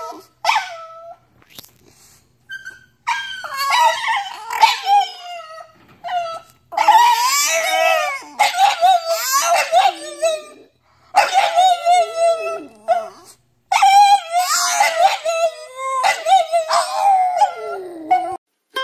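French bulldogs howling in long, wavering bouts of a couple of seconds each, the pitch gliding up and down, with short pauses between bouts.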